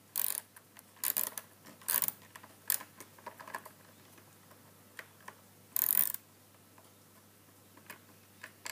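Irregular clicks and short scrapes of a tool working a skateboard axle nut onto the truck, about a dozen in all. The loudest is a longer scrape about six seconds in.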